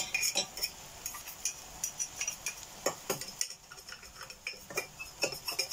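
A metal table knife scraping tomato puree out of a small plastic tub over a steel saucepan: a string of irregular scrapes and light clicks.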